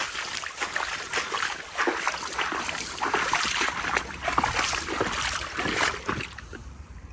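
Floodwater from the river surging over the bank edge, splashing and rushing continuously, easing off slightly near the end.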